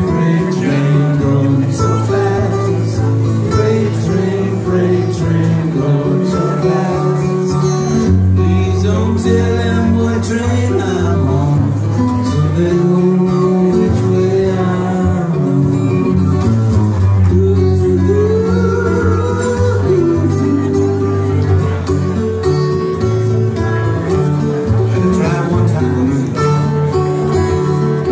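Live band music with a picked acoustic guitar, an instrumental passage without words.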